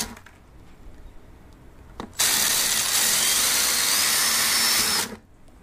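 Cordless drill boring a stop hole through the wall of an HDPE plastic bucket at the end of a crack, to keep the crack from running farther. After a click about two seconds in, the drill runs steadily with a faint high whine for about three seconds, then stops abruptly.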